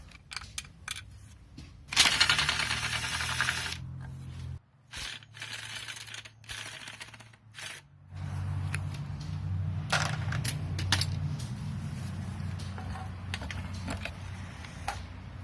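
Metal tools and loose bolts clinking and scraping on a car engine during teardown, with a dense burst of rapid mechanical clatter about two seconds in. A low steady hum joins from about eight seconds in.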